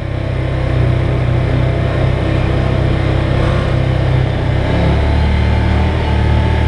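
Side-by-side UTV engine running as the machine drives along a dirt trail, heard from on board; a steady low drone whose pitch drops a little about two-thirds of the way through.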